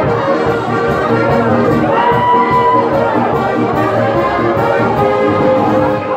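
Brass band music playing a melody in held notes.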